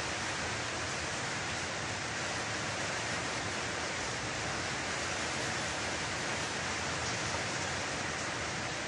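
Steady rain, heard as an even hiss.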